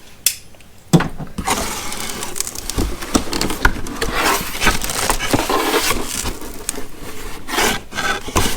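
Cardboard box being opened by hand: a sharp knock about a second in, then continuous crackling and rustling of cardboard and packing tape as the flaps are pulled open, with a few louder scrapes near the end.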